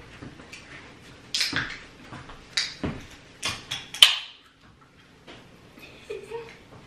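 A run of short knocks and clicks from things being handled on a kitchen counter, the sharpest about four seconds in, then quieter.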